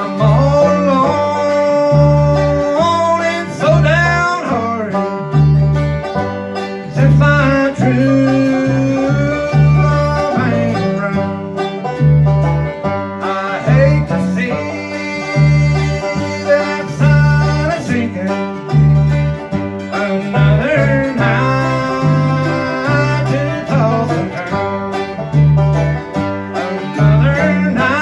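Bluegrass band playing: banjo picking over the steady low notes of an acoustic bass guitar, with guitar, the bass notes falling about twice a second.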